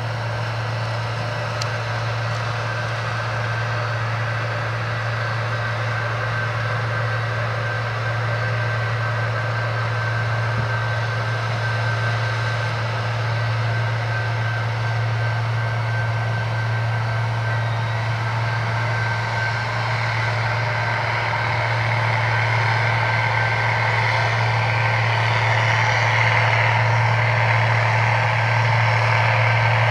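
Cotton picker running steadily as it harvests, a low engine drone with a broad whir above it, growing gradually louder over the second half.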